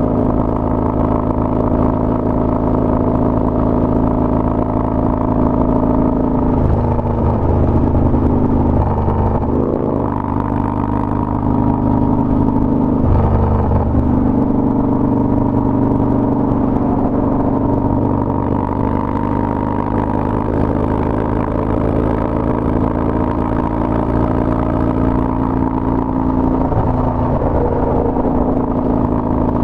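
Harley-Davidson Dyna Street Bob's V-twin running at freeway speed through a Bassani Road Rage 2-into-1 exhaust. The engine note shifts for a few seconds about a third of the way in and again briefly near the middle as the throttle changes.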